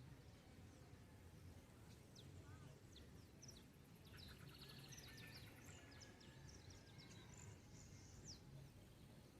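Faint birds chirping and trilling in a dawn chorus: quick high chirps and short trills, busiest from about two seconds in until near the end, over a low steady rumble.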